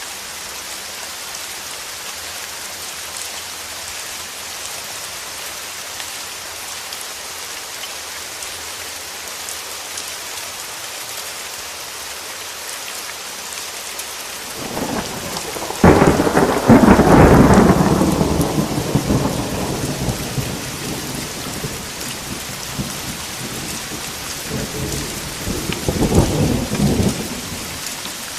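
Steady rain on a surface, with a sudden loud thunderclap about halfway through that rolls away over several seconds, and a shorter rumble of thunder near the end.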